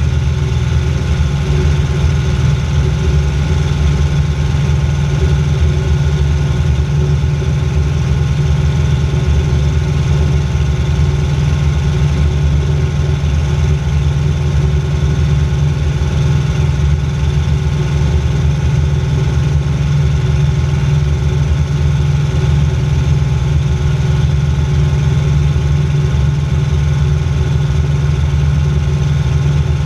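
Aerocruiser float plane's engine and propeller droning steadily in flight, heard from inside the cabin, with an even, unchanging pitch.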